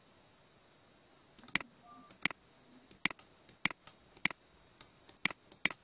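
Computer mouse clicking about a dozen times at an uneven pace, starting about a second and a half in, one click for each stroke of a handwritten word drawn on screen with an annotation pen.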